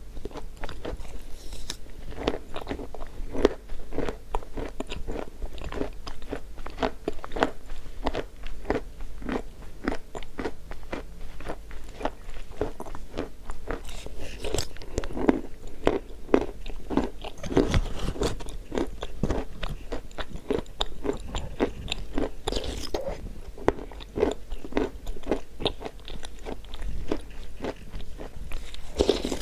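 Close-miked biting and chewing of chalk: a continuous run of crisp, irregular crunches and crackles, with a few louder bites now and then.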